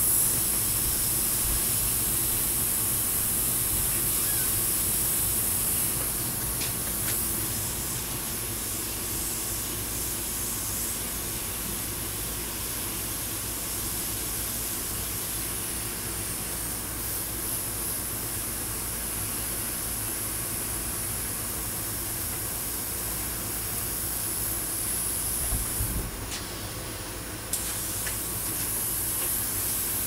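Harbor Freight double-action, suction-feed airbrush spraying paint: a steady hiss of air, which cuts out for a moment near the end.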